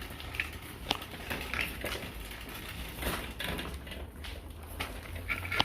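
Footsteps with light, irregular scuffs and crunches over a low steady hum.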